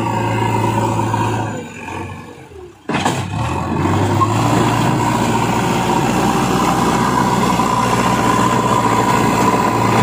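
JCB 3DX backhoe loader's diesel engine running steadily as the machine works. About two seconds in the sound falls away almost to quiet, and a second later it comes back abruptly and carries on steadily.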